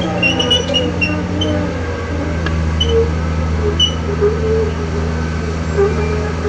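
Komatsu PC2000-8 mining excavator's diesel engine running steadily at a constant pitch, with a few brief high squeaks in the first four seconds.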